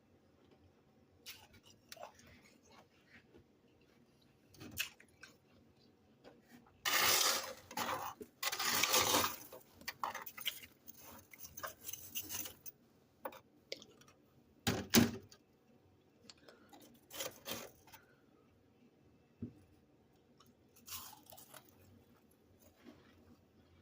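Freezer frost crunching in irregular bursts, the longest and loudest about seven to nine and a half seconds in, with a sharp crunch near the middle and quieter clicks and crackles between.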